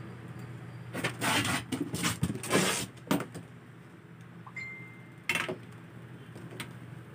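Ring light parts and packaging being handled: a run of rustling and knocking for about two seconds, then two sharp clicks later on. A steady low hum sits underneath.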